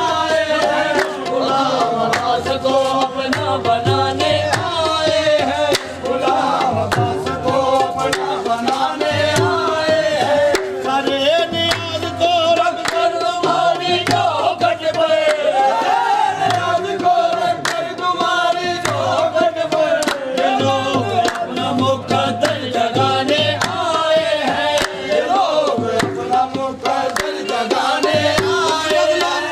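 Qawwali: a lead voice singing a wavering melody over a steady held note, with hand-drum strokes and handclaps keeping an even beat.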